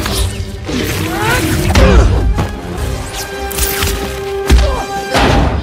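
Dramatic film score over fight sound effects: several hard punches and thuds, the heaviest about two seconds in and again about four and a half seconds in.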